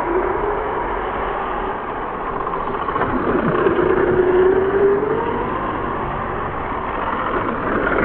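Pioneer slot cars racing on a track. Their small electric motors whine continuously, rising and falling in pitch as the throttles are worked, over a steady rushing noise.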